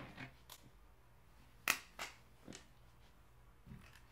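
A few faint, scattered clicks and knocks of a person moving about a small room as he gets up from his desk and walks away.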